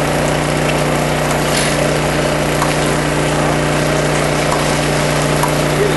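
A fire engine's motor running at a steady speed to drive its pump: a constant drone with an even hiss over it.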